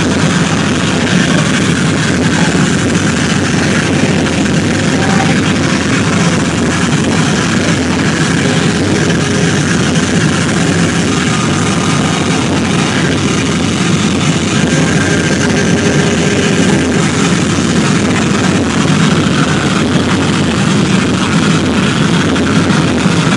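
Loud live band music, a dense, distorted wall of noise with no clear beat.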